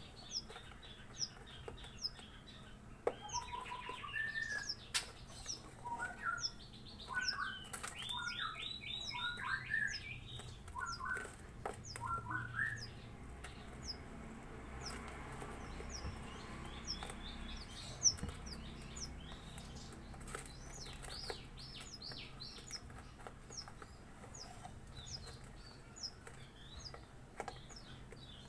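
Young Javan bushlarks calling: a short, high chirp repeated about every half second, joined in the first half by a run of lower, varied calls and a fast ticking trill.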